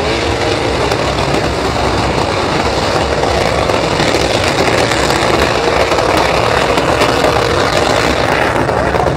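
Truck engine held at high revs through a burnout, with its tires spinning on the pavement in a loud, steady wall of noise.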